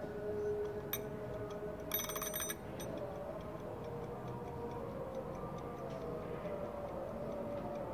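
Clockwork mechanism of a 360° time-lapse panning base being wound, with a short rattle of ratchet clicks about two seconds in, then settling into steady, even ticking as it starts to run.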